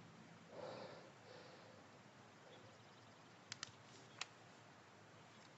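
Near silence, with a soft rustle about half a second in and three faint, sharp clicks between three and a half and four and a quarter seconds in.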